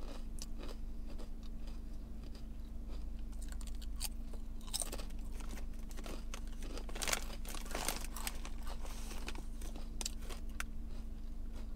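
Crunchy waffle-cut potato chips being bitten and chewed: a run of crisp crackling crunches, thickest about halfway through, with the chip bag rustling as a hand reaches in for another chip. A steady low hum sits underneath.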